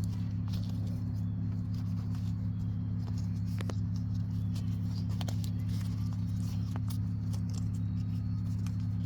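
Faint, scattered small clicks and ticks of a shift boot being handled and pulled apart by hand, over a steady low hum that carries on unchanged throughout.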